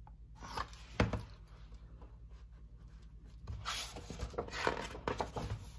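Handling of a hardcover picture book: a sharp knock about a second in, then paper rustling for about two seconds near the end as a page is turned.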